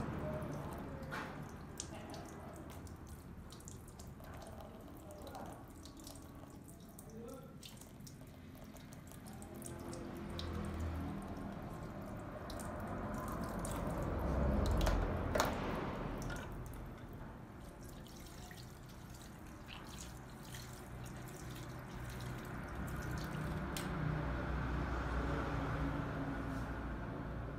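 Water from a shampoo-basin tap running and dripping into the basin, swelling to its loudest a little past the middle as a small metal grooming tool is rinsed under it, with one sharp click near that peak. Faint small clicks come and go throughout.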